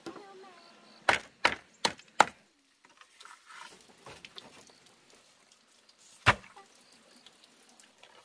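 Chopping into wood: four quick, sharp strokes about a third of a second apart, then a single stroke a few seconds later.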